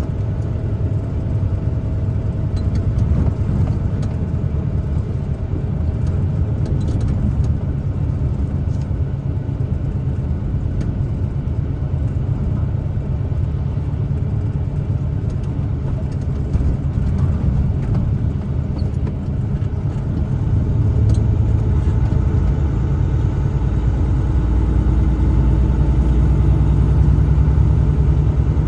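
Truck driving along: a steady low rumble of engine and road noise, which grows louder about twenty seconds in.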